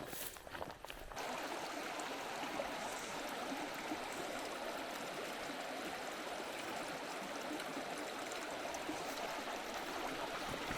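Spring-fed creek water flowing, a steady rush that sets in about a second in after a few faint knocks.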